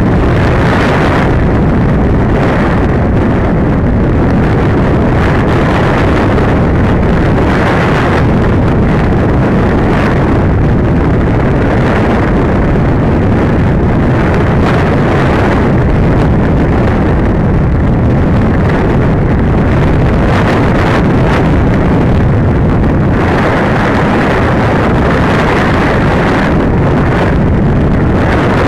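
Loud, steady wind rush and buffeting over the onboard camera's microphone on a Masterline Preacherman 100-inch RC glider in flight, swelling now and then in gusts. No motor is heard, so the glider is gliding.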